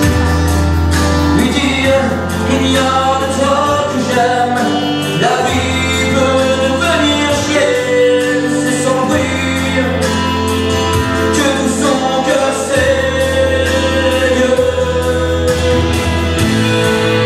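Music with a man singing into a handheld microphone. Underneath are held bass notes that change every few seconds and a steady percussive beat.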